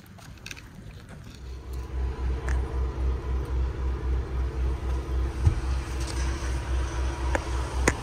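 Diesel truck engine idling: a low, even throb of about four to five pulses a second that comes in about a second in, with a couple of short knocks over it.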